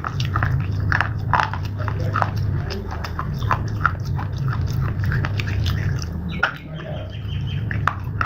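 Close-up crunching and chewing of hard, brittle slate pieces: many sharp crunches, several a second, over a steady low hum.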